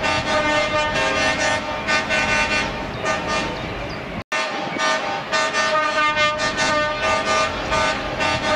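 Truck air horns sounding in a long run of pulsing blasts, several pitches together, with a brief cut-out a little before the middle.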